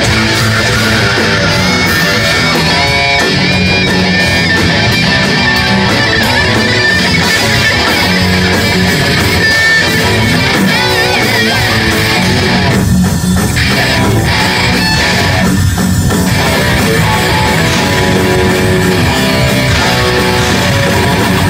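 Live metal band playing loud, with distorted electric guitars, bass and drums. The cymbals drop out briefly twice about two-thirds of the way through.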